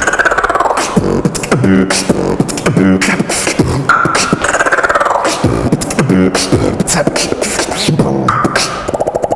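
Human beatboxing: fast mouth-made drum strokes over a pitched, gliding bass line, with a higher held tone coming back about every four and a half seconds as the phrase repeats. Near the end it turns into a fast buzzing roll.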